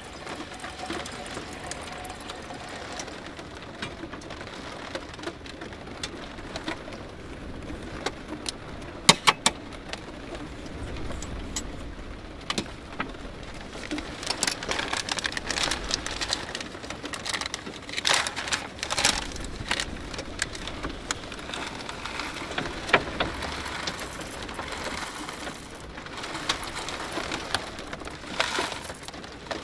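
Coffee-making handling sounds in a small space: a few sharp clicks and knocks, and stretches of crinkling as a coffee bag is handled and opened, over a steady low background noise.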